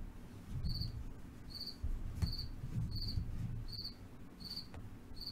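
A cricket chirping steadily, one short high chirp a little more than once a second, over soft low handling noises.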